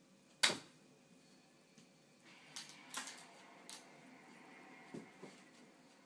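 A Doberman moving about after a laser dot: a scatter of sharp knocks and light metallic jingles, likely its collar tags and paws. The loudest knock comes about half a second in, a cluster of jingles follows in the middle, and two softer knocks come near the end.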